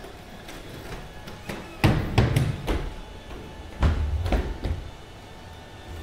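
Boston Dynamics Atlas humanoid robots' feet thudding and clattering on plywood boxes and a wooden platform as they run and jump, in two clusters of heavy impacts about two and four seconds in.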